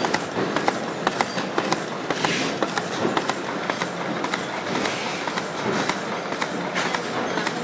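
Galaxo PRO780LB crash-lock-bottom carton folder-gluer running: a steady mechanical rumble and hiss with a rapid, irregular series of sharp clicks, several a second, as foil carton blanks are carried through its belts and rollers.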